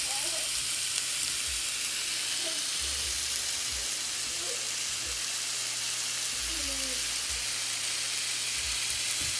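Steak frying in a hot pan after being flipped, with a steady sizzle.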